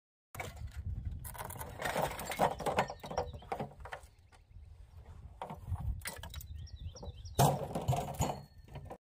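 Loose junk metal parts clattering and knocking as a plastic barrel of them is tipped out into the cab of a scrap pickup truck, in uneven bursts with a lull in the middle and the loudest crash about seven seconds in.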